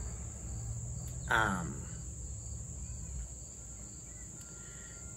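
Crickets trilling steadily in one continuous high-pitched band, with a low background hum. About a second in there is a short voice sound that falls in pitch.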